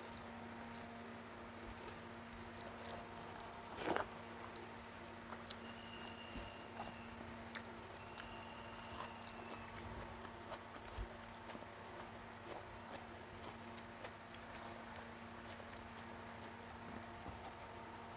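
Faint chewing and mouth sounds of someone eating rice and tilapia fish curry with her fingers, with small clicks and squishes of fingers mixing rice. One louder, sharp mouth sound about four seconds in, over a steady low hum.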